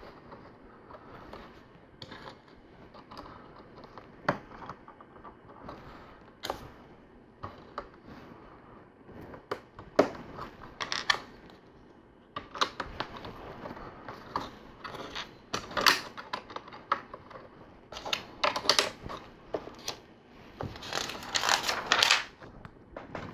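Plastic LEGO pieces clicking and clattering as they are handled, picked from loose pieces and pressed together: irregular sharp clicks throughout, with a busier stretch of clattering near the end.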